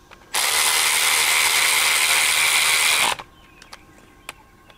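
Cordless power driver with a socket extension running down a bolt on an automotive A/C compressor's housing cover. It runs steadily for about three seconds, starting a moment in and stopping abruptly.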